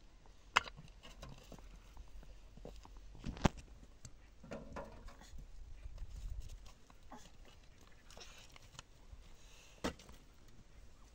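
Sparse, sharp knocks of stones and hollow concrete blocks being handled and set in place, the loudest about three and a half seconds in, with softer scraping and shuffling between them over a steady low rumble.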